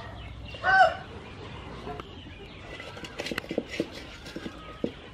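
A chicken calls once, briefly, about a second in. It is followed by scattered light clicks and ticks over a low steady background.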